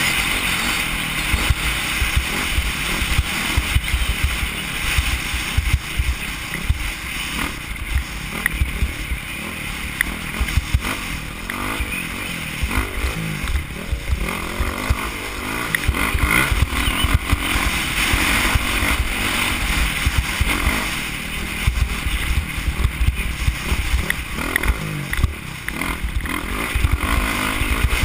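Off-road dirt bike engine running hard at speed, its pitch and level swelling and easing with the throttle, with wind buffeting and bumps on the on-board camera's microphone.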